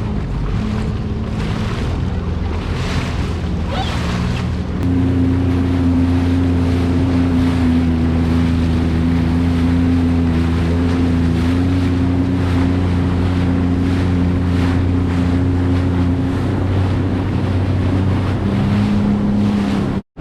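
Sea-Doo jet ski engine running at speed over open ocean, with wind on the microphone and the hull slapping across waves. About five seconds in the engine note rises and grows louder, then holds steady.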